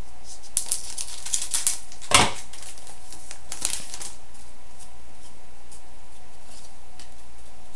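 Upper Deck SPx hockey card pack being opened and handled: a flurry of small wrapper crackles and clicks, one sharper knock about two seconds in, then a few faint clicks over a steady low hum.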